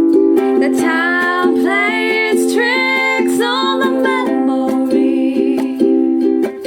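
Background music: a song with strummed string accompaniment and a singing voice.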